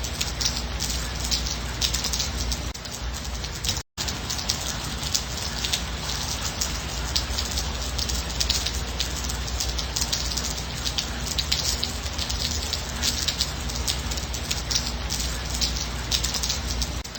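Steady light rain falling, with many separate drops striking sharply against a constant wash. The sound cuts out completely for a split second about four seconds in.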